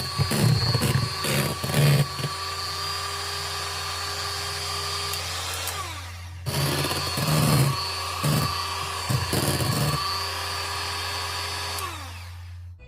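Small electric kitchen mixer motor running at a steady speed, with irregular knocks and clatter in the bowl. It is switched off about six seconds in and its pitch falls as it spins down. It starts again moments later and winds down once more near the end.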